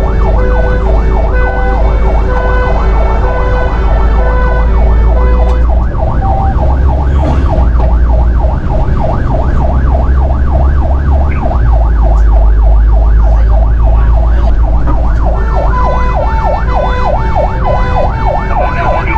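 Fire engine's electronic siren heard from inside the cab while the truck drives, with the engine running low underneath. It switches modes: a slow high-low two-tone for the first five seconds or so, then a fast rising-and-falling yelp, and near the end a quick high-low warble.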